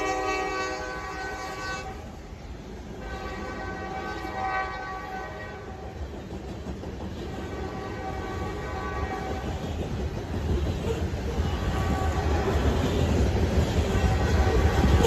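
Freight train passing: a locomotive horn fades over the first couple of seconds and sounds on faintly as the locomotives draw away. Meanwhile the low rumble and rail clatter of the passing tank and hopper cars grow steadily louder.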